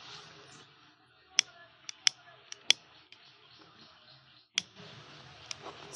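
A lighter struck repeatedly to light a hand-held cigarette: a series of about seven sharp clicks, the loudest and closest together in the first three seconds.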